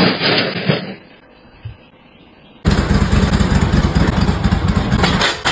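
An engine running loud and rough, cutting in suddenly a little over two and a half seconds in after a second of quiet; the first second holds the tail of music.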